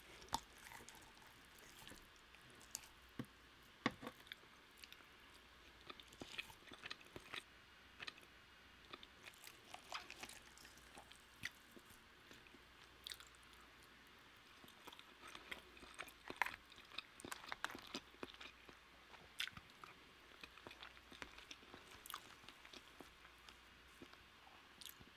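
Faint, close-miked chewing of roast chicken, with scattered soft mouth clicks and smacks.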